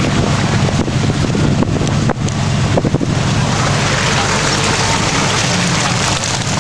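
Engine of an off-road mud truck running steadily close by, a low steady drone, with wind rushing on the microphone.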